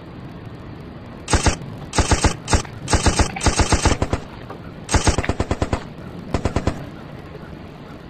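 Machine-gun fire in several short rapid bursts, a sound effect standing in for a cat's chattering.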